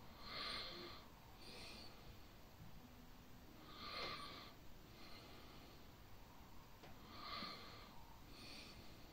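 Faint breathing close to the microphone over near-silent room tone: soft hissy breaths a second to three seconds apart, five in all.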